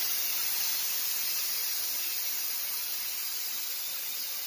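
Compressed air escaping from the air compressor's tank in a steady hiss that slowly drops in level as the pressure bleeds off.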